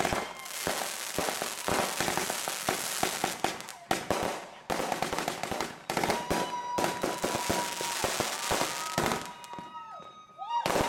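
A finale board of consumer fireworks going off: rapid crackling and popping with repeated sharp bangs. Steady whistling tones come in over it about six seconds in and again near the end.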